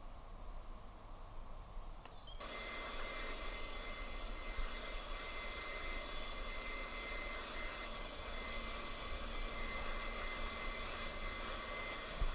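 Small battery-powered grass shears switched on about two seconds in and running steadily with a high, even buzz as they cut along the lawn edge.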